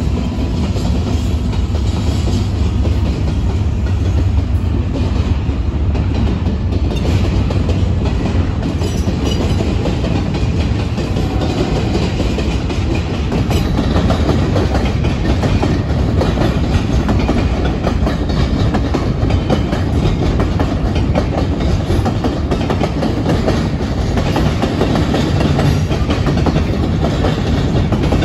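A BNSF double-stack container freight train rolling past close by: a steady rumble with the clickety-clack of steel wheels over the rail joints. The low rumble is heavier for roughly the first ten seconds.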